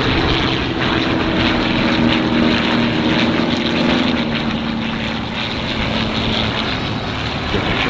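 Propeller-driven airplane flying overhead, loud, with a steady engine drone over heavy rushing noise.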